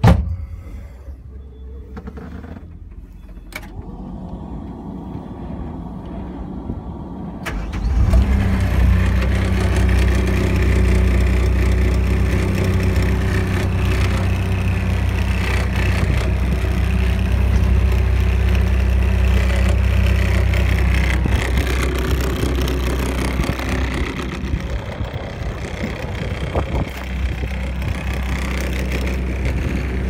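Perkins diesel engine of a 2017 Alpin M60 skid steer running. A click comes right at the start, then a quieter rumble, and about seven and a half seconds in the engine gets suddenly louder and runs on steadily, easing off a little in the last few seconds.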